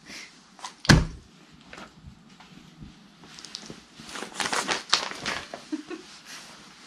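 A single sharp thump about a second in, then rustling and crinkling, busiest around the fifth second.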